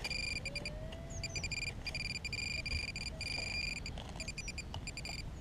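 Handheld metal-detecting pinpointer probing a pile of dug soil, sounding a high electronic tone that comes in quick runs of beeps and longer steady tones as it closes in on the buried metal target, a lead musket ball.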